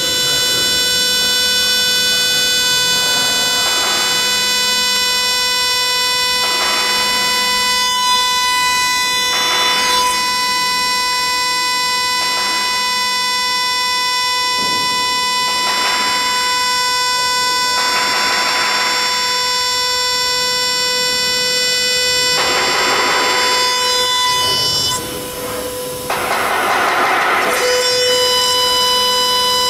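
CNC router spindle whining at a steady high pitch as an end mill engraves aluminium, with louder rasping rushes of cutting noise every few seconds as the tool bites into the metal. The sound drops briefly near the end and then comes back.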